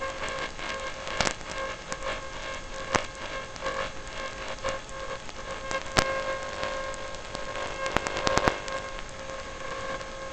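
Onboard sound from a Mech Warfare combat robot: a steady hiss and whine with scattered sharp clicks and snaps. The loudest click comes about six seconds in, and a quick cluster follows around eight seconds.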